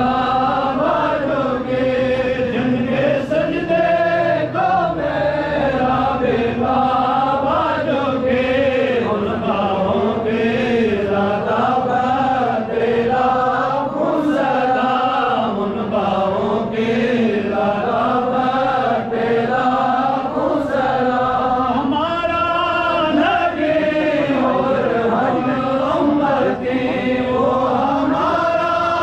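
Melodic vocal chant: a slow, wavering sung line that runs on with hardly a pause.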